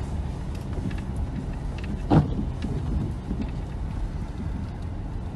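A Subaru car driving off-road through snow, a steady low rumble of engine and rough ground with small knocks and rattles. About two seconds in there is a single short, louder thump.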